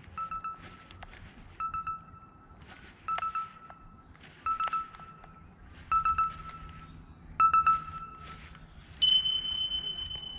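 Quantum Energy PT baitcasting reel cranked in short whirring bursts about every second and a half, six times, the jerk-and-reel cadence of working a jerkbait. About nine seconds in, a bright chime rings out suddenly and fades slowly.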